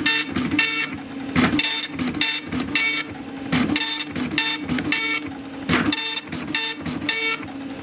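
Tandy DMP-250 (Citizen GSX-140) 24-pin dot-matrix printer printing a color graphic with a four-color ribbon. The print head buzzes in short passes, about two a second, with brief gaps between them.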